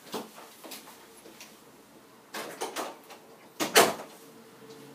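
A door being handled: a few light clacks a little over two seconds in, then one loud, sharp knock just before four seconds.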